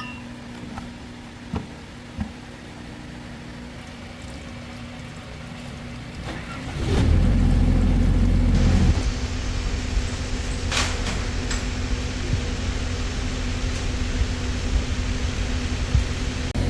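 A few light clicks, then about seven seconds in a heavy engine starts up and keeps running steadily with a deep, low rumble.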